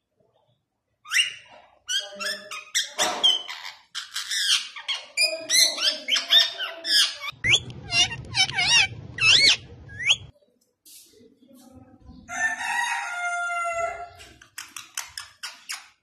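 Indian ringneck parakeet calling in a run of quick squawks and chattering screeches, with wavering whistled notes about halfway through. After a short pause come a few longer, drawn-out squawking calls near the end.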